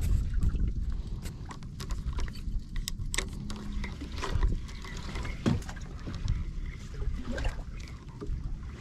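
Water lapping against a small boat's hull over a low steady rumble, with a few scattered sharp clicks and knocks.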